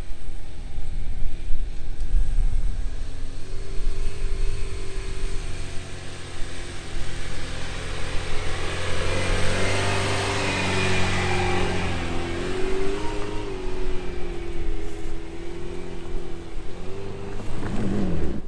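An off-road SUV's engine running under load, its pitch holding fairly steady with small rises and dips while a rushing noise swells in the middle. Near the end the engine pitch drops sharply.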